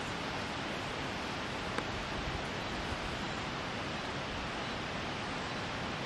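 Steady, even rushing hiss of outdoor background noise with no distinct events, and one small click a little under two seconds in.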